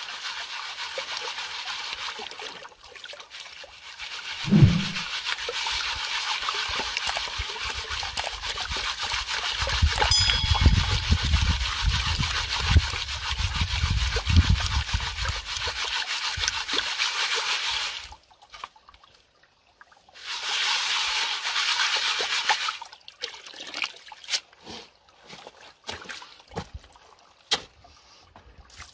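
Water trickling and splashing steadily while a plastic colander of gravel is sloshed in a basin of water, with a low rumble partway through. About two-thirds of the way in the trickle drops away, returns briefly, then gives way to scattered knocks and small splashes.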